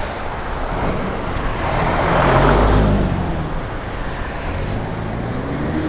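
Steady wind and road noise from a road bicycle riding at about 22 mph. A motor vehicle passes close by, louder about two to three seconds in, then fades.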